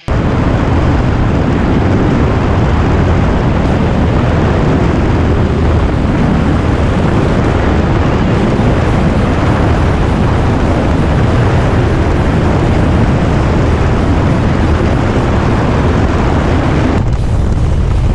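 Heavy wind rush on a camera mounted outside a single-engine high-wing plane, with the propeller engine droning steadily underneath, through flight and the landing onto the runway. The noise thins briefly about a second before the end.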